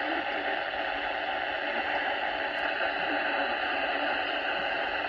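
Steady radio static: an even hiss from a radio receiver with no broadcast voice coming through.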